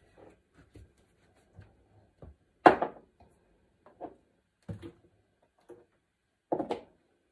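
Scattered light knocks and clatters of objects being handled in a kitchen. A sharper knock comes about two and a half seconds in and another near the end.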